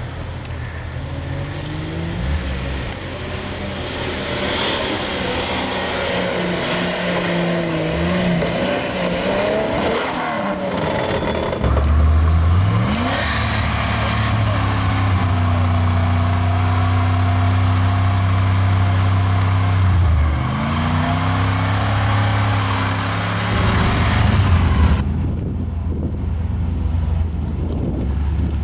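Off-road 4x4 engines revving and labouring as the trucks are driven through mud and ruts, the engine note rising and falling over and over. It is louder from about twelve seconds in, with a rising rev near the end.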